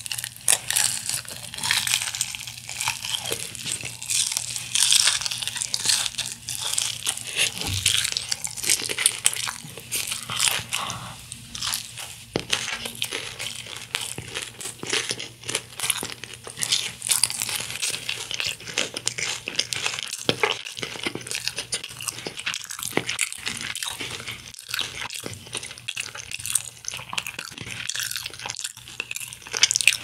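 Crunching and chewing of honey-glazed fried chicken: a dense, continuous run of crisp crackles as the fried skin is bitten and chewed.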